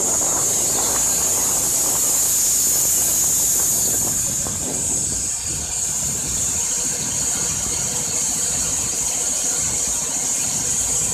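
The Wood-Mizer LT-15 sawmill's petrol Kohler Pro-15 engine running steadily under a constant high-pitched hiss, while the cant is turned by hand on the mill bed.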